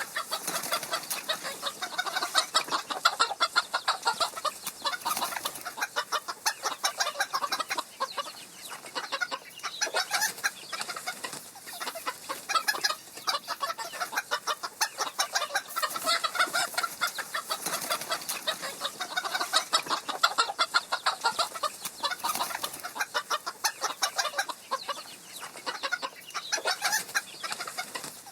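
Chickens clucking, a rapid, unbroken stream of short calls overlapping one another.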